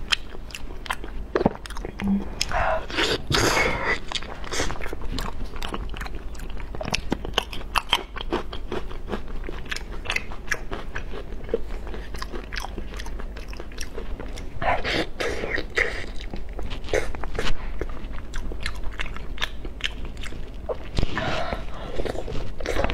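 Close-miked chewing and mouth sounds of someone eating glazed braised eel, a dense run of small wet clicks, with a few louder, longer stretches about three seconds in, in the middle, and near the end.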